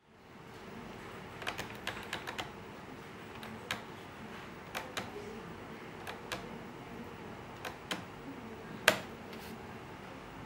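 Switches on a hand-held RC transmitter clicking as the model truck's lights are switched on and off. About a dozen sharp clicks come at irregular intervals, a quick cluster about one and a half to two and a half seconds in and the loudest near the end, over a steady low hum.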